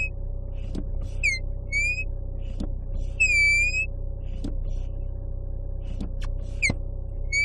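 A car's foot pedal squeaking as it is pressed and let up again and again: each stroke gives a high squeak that slides in pitch, with short clicks in between, over a steady low hum.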